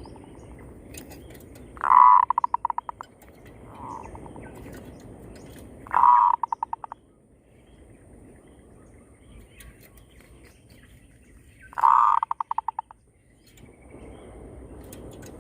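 Zebra doves (perkutut) cooing back and forth: three loud calls, each a strong note breaking into a quick run of fading stuttered pulses lasting about a second, a few seconds apart, with a fainter short coo answering about four seconds in.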